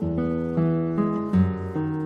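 Background music: acoustic guitar playing chords, with fresh notes struck every half second or so.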